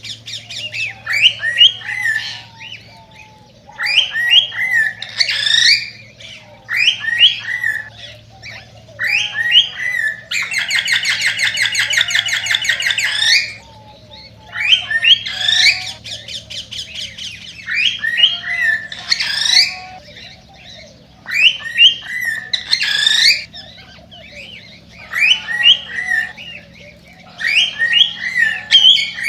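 A male cockatiel sings its excited courtship song. Short bouts of rising and falling whistles and squawky chirps repeat every couple of seconds, with a fast buzzing chatter lasting about three seconds near the middle.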